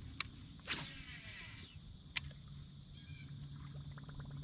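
A fishing reel being cranked fast with a rapid run of small clicks, during the fight with a big bass that has just struck. It comes after two sharp clicks and a short splashing rush, with a low steady hum underneath.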